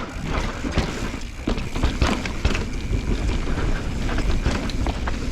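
Pivot Switchblade mountain bike descending a dirt trail, heard from an action camera on the bike or rider: a steady rush of tyre and wind noise with frequent sharp knocks and rattles as the bike hits bumps.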